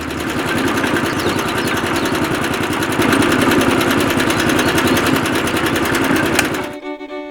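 A small motor running steadily with a fast buzzing rattle, cutting off abruptly near the end.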